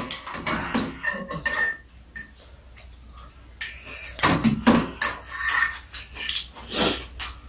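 Metal spoons and chopsticks clinking and scraping against ceramic bowls while two people eat, as scattered light taps. A few louder knocks come about four to five seconds in and again near the end.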